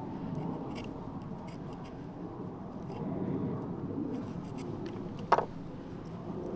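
Handling noises from aeonium plants and cuttings being moved about: soft rustling and scraping with scattered small clicks, and one sharper click a little past five seconds in.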